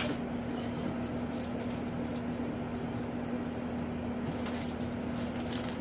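Steady room noise with a constant low hum, and a few faint rustles and taps of packaging as hands work inside a cardboard box.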